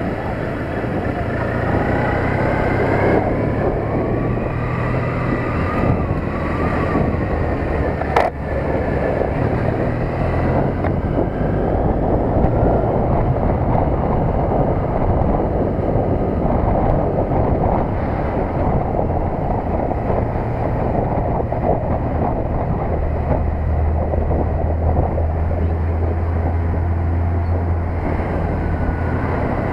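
Triumph Bonneville T100's parallel-twin engine running under way, its note rising and falling in pitch with the throttle, with wind noise buffeting the camera microphone. A single sharp click about eight seconds in.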